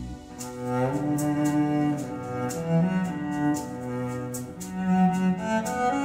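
Recorded music played back through Totem Forest floorstanding speakers driven by a Moon i3 amplifier: an instrumental passage of slow, sustained string-like melody notes, with a light high tick keeping time about twice a second.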